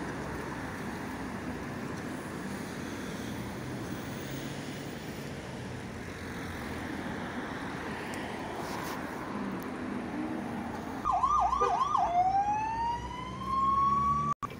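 Road traffic passing through a city intersection, then about eleven seconds in an emergency-vehicle siren starts loudly with a few fast yelps and goes into a slow rising wail, which is cut off suddenly just before the end.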